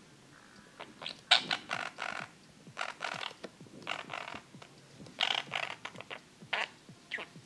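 Budgerigar chattering: a string of short, scratchy chirps and warbles in quick bursts with brief pauses between them.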